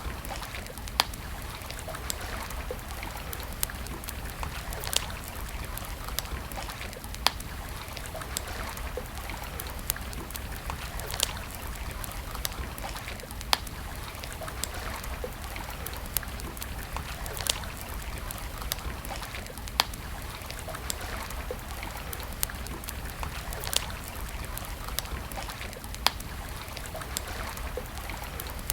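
Campfire crackling, with sharp wood pops about every two seconds, over the steady rush of flowing stream water.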